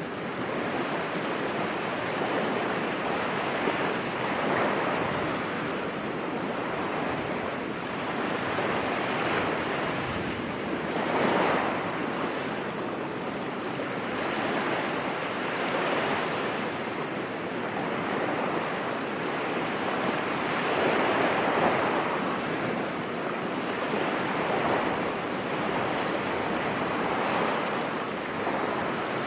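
Sea waves breaking and washing up a beach: a continuous rush of surf that swells and eases every few seconds, with a stronger wave about eleven seconds in.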